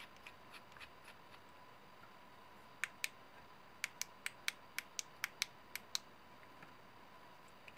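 Sharp light clicks from a handheld metal LED flashlight being handled and tested: two a little before three seconds in, then a quick run of about nine at roughly four a second. Its loose battery has been wedged with sticky paper, and the small rattle that remains is not the battery.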